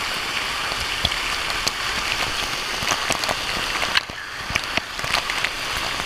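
Water-park waterfall pouring down onto the camera and the water around it: a dense hiss of falling water with sharp drop hits, thinning about four seconds in to a patter of scattered splashes.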